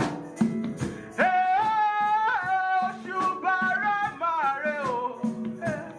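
A Yoruba praise chorus sung with band accompaniment and steady percussion, the voice holding long, gliding notes.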